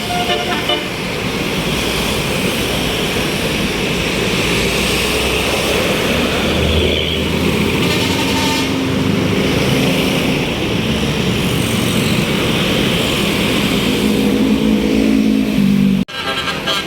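Tour bus engine running as the bus passes, with road traffic noise. Near the end the sound cuts off abruptly and short horn tones begin.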